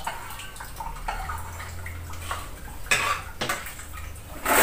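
Kitchen knife clicking and scraping on a plate as tofu is sliced, with small clinks of crockery and a louder clatter about three seconds in. A loud rush of noise starts right at the end.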